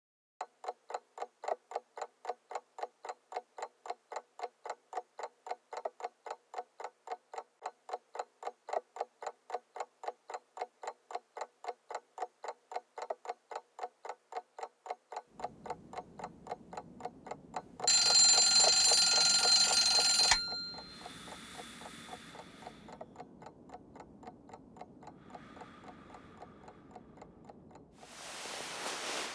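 A clock ticking with quick, even ticks, then an alarm clock ringing loudly for about two seconds, followed by two fainter short rings.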